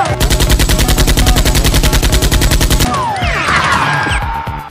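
Rapid automatic-gunfire sound effect: a fast, evenly spaced burst of shots that stops about three seconds in, followed by several falling whistling sweeps.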